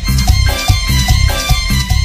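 Latin dance music playing loud, with a steady bass-and-drum beat about twice a second under bright melody instruments.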